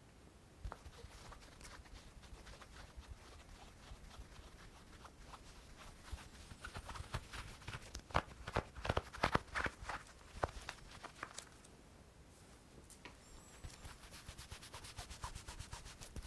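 Close-miked ASMR hand sounds: scattered soft taps and clicks over a faint rustle, with a dense flurry of sharper taps from about eight to eleven seconds in.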